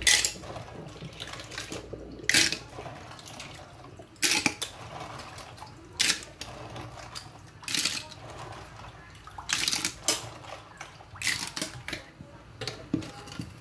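Clams being rinsed by hand in a bowl of water in a stainless steel sink: short splashes and sloshing roughly every one and a half to two seconds as handfuls are swished and lifted out, washing the sand off the shells.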